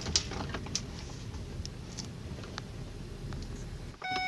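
Low steady rumble of the converted ambulance van's engine as it is parked, with a few light clicks and knocks. Near the end the rumble stops and the vehicle's warning chime begins beeping.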